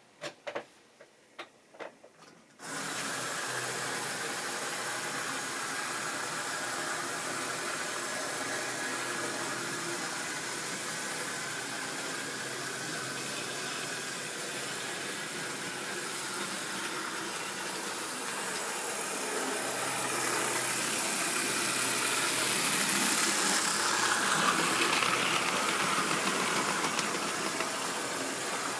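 Model train running on the layout out of sight: a steady whirr of its electric motor and wheels on the track. It swells from about twenty seconds in as the train comes nearer, then eases off. It begins after a brief hush broken by a few clicks.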